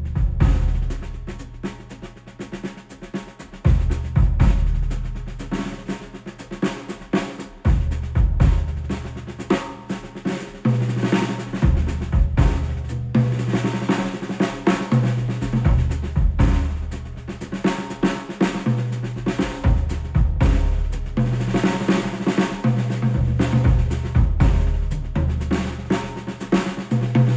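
Instrumental music led by a drum kit, with snare hits, rolls and kick drum, over a deep bass line that changes note every few seconds.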